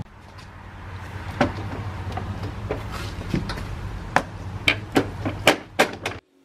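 Hands pressing and shifting a rear spoiler on a car's trunk lid: a string of sharp clicks and knocks, coming faster in the second half, over a low rumble.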